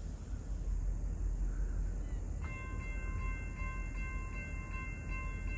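Grade-crossing warning bell starting up about two and a half seconds in and ringing in a fast, even ding of about three strokes a second, over a low steady rumble of wind on the microphone.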